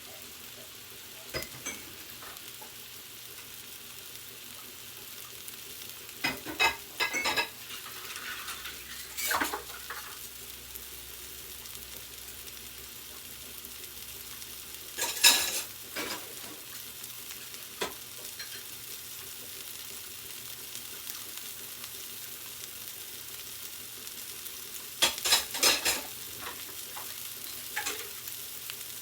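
Meatballs sizzling steadily as they fry in a pan, with several short bursts of scraping and clinking as a utensil stirs and turns them; the loudest burst comes about midway.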